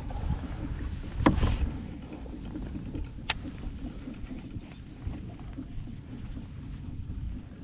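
Low rubbing and rustling as camouflage clothing brushes against the chest-mounted camera while handling gear in a kayak, with one solid knock about a second in and a sharp click a couple of seconds later.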